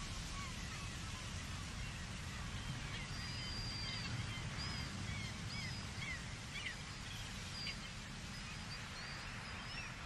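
Many short, high bird chirps and whistles over a steady low rumble.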